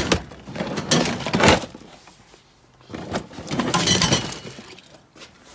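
Toy train set pieces (track, a transformer, a plastic toy plane) clattering and rattling together in a plastic crate as it is picked up and moved, in three bouts of clatter.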